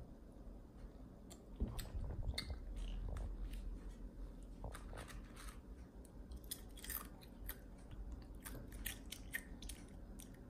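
A young child chewing cereal flakes and blueberries with small crunches, while her fingers make light clicks and taps picking food from a plastic plate. There is a louder dull bump about a second and a half in.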